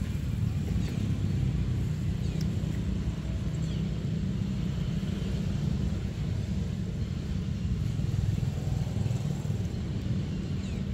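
Steady low outdoor rumble, with a few faint high chirps over it.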